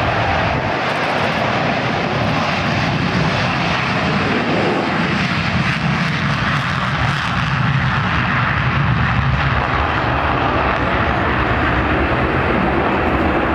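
A formation of F-16 Fighting Falcon jets taking off together with afterburners lit: a steady, loud jet-engine roar, with a heavier low rumble in the middle as they lift off.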